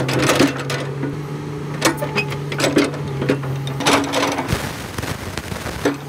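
Komatsu 200 excavator undercarriage clanking and knocking irregularly at the track and front idler as it travels, over the steady hum of its diesel engine, which falls away about four seconds in. This is the abnormal travel noise that calls for a new front idler and a tightened track-adjusting cylinder.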